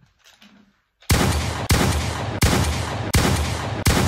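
Recorded gunfire sound effect: a string of loud shots about 0.7 s apart, each trailing off in a long noisy tail, starting about a second in.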